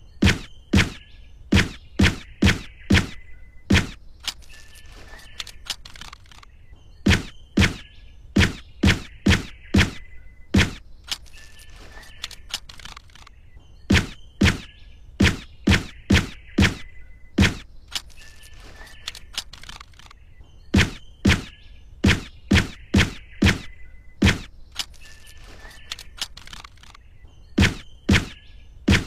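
Suppressed Nagant M1895 revolver firing in strings of seven sharp shots about half a second apart, one string per cylinder. Each string is followed by a pause of about three seconds, and the pattern repeats four times.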